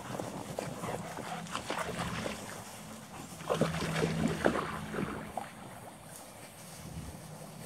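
Rustling and crackling of tall dry grass and brush as German Shepherd dogs and a person on foot push through it, with louder crackles about three and a half to four and a half seconds in. A low steady hum comes and goes underneath.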